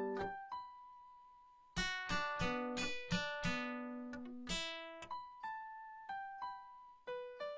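Instrumental background music on plucked strings. Strummed chords come in about two seconds in, after a lull of one held note, and give way to single picked notes in the second half.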